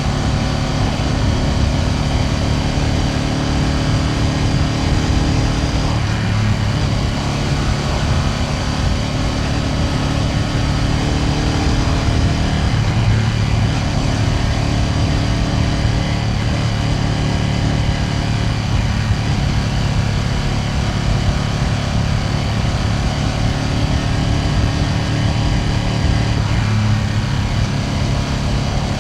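Ducati Panigale V2S twin-cylinder engine running steadily under way, its note shifting slightly about six seconds in, again around thirteen seconds and near the end.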